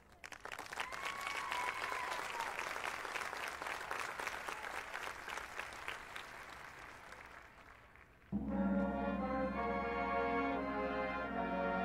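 Audience applauding, with one whistle rising and falling about a second in. About eight seconds in, the marching band's brass comes in suddenly with loud sustained chords.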